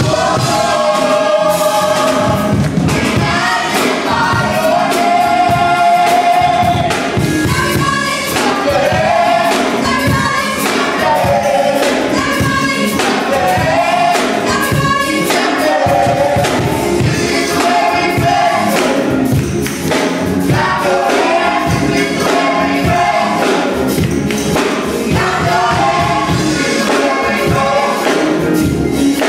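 Gospel choir of men and women singing live in harmony over a steady beat.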